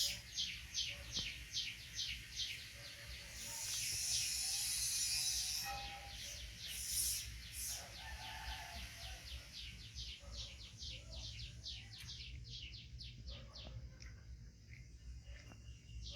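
A long run of short, high chirps, about three or four a second, bird-like, with a few brief bursts of hiss.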